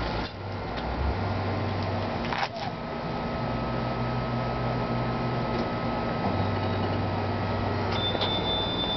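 Lamborghini Murciélago V12 idling with a steady low hum. A couple of knocks come as someone climbs into the seat, one near the start and one about two and a half seconds in, and a steady high beep starts near the end.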